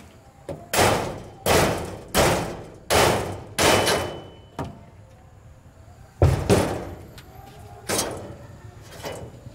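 Steel canopy frame of a mini truck's cargo bed being knocked and worked loose: sharp metal bangs with a short ring, five about three-quarters of a second apart, then a louder bang with a dull thud and two more spread out.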